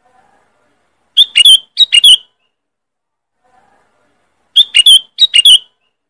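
Sooty-headed bulbul (kutilang) calling, loud and sharp: two quick phrases of about four short notes each, the first about a second in and the second a few seconds later.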